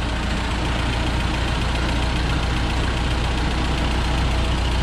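Ford 8N tractor's four-cylinder flathead engine idling steadily, running again on its new coil, points and condenser.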